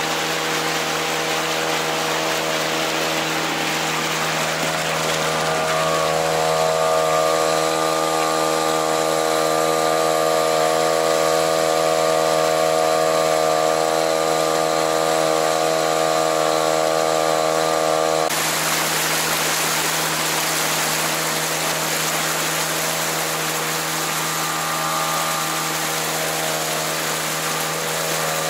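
Mercury 3.3 two-stroke outboard motor running steadily at a constant throttle, with its tone shifting slightly about six seconds in and changing abruptly about two-thirds of the way through.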